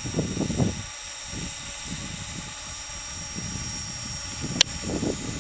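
Model MD-530 Innovator RC helicopter running up on the ground, its motor and rotor giving a steady high whine under low, gusty rumbling. A single sharp click about four and a half seconds in.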